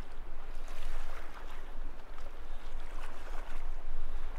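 Sea water lapping and splashing against a sailboat's hull, over a steady low rumble.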